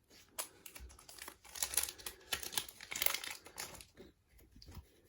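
Foil Pokémon booster-pack wrapper crinkling and cards clicking against each other as they are pulled out of an opened pack, busiest in the middle.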